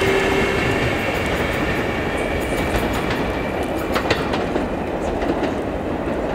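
Subway train pulling away on the L line. A steady electric motor whine stops about a second in, then the wheels rumble on the rails as the train recedes, with a few sharp clicks over rail joints about four seconds in.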